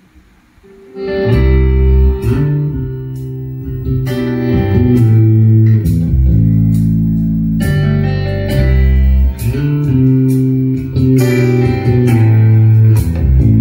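A guitar-led song with heavy bass, played loud through a line array of Actpro KR208 dual 8-inch tops stacked on SB18 18-inch subwoofers. The music starts about a second in.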